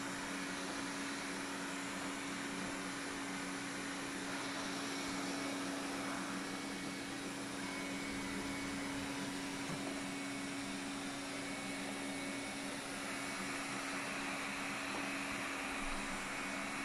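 Xiaomi Mijia 1C robot vacuum-mop running, its suction fan giving a steady hum over a wide hiss that shifts a little as it moves.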